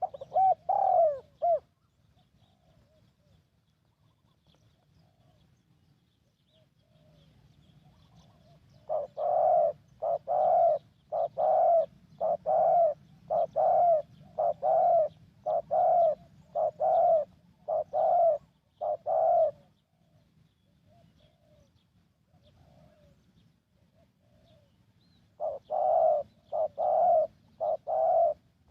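Spotted dove cooing. A short call comes at the very start, then a run of about eleven coos about a second apart, and another run near the end.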